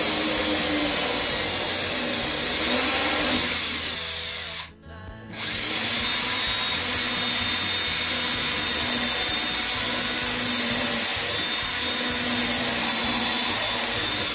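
Cordless drill running at a steady speed, boring a small hole upward through a bus's ceiling lining. It stops for about half a second around five seconds in, then runs on steadily.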